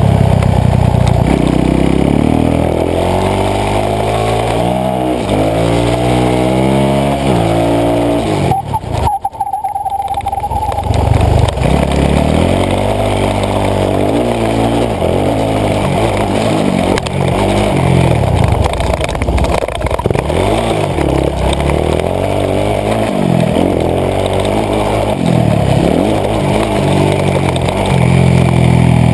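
Supermoto motorcycle engine heard close up on the bike at speed, climbing in pitch through the gears and falling back again and again as it accelerates and slows around the track, with wind rush over it. A brief dip in loudness comes about nine seconds in.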